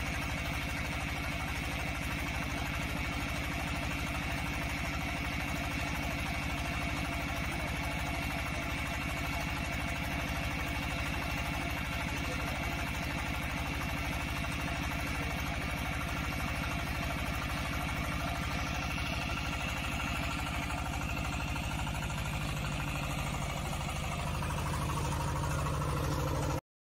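Engine of a small DH150 water well drilling rig running steadily. About 21 seconds in the tone shifts and grows a little louder, then the sound cuts off suddenly near the end.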